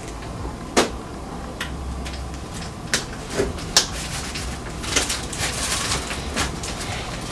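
Plastic window-shade parts clicking and scraping as a piece is pressed and snapped onto the shade's rail by hand: a few sharp separate clicks, then a quicker run of rustling clicks about five seconds in.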